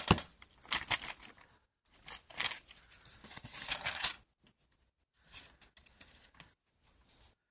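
Paper sheets being handled and slid across a cutting mat. Rustling for about four seconds, then a few softer rustles. A sharp click right at the start.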